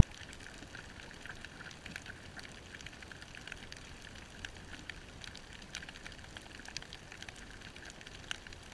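Snapping shrimp crackling on a coral reef, heard underwater: a dense, steady patter of tiny clicks.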